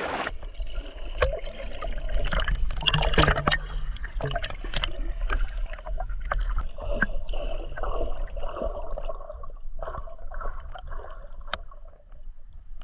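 Water sloshing and gurgling with scattered small splashes as cats paddle through it.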